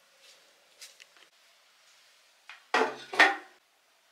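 Galvanized metal watering can set down on a tiled floor: faint taps, then two loud metallic clanks with a short ring, about half a second apart.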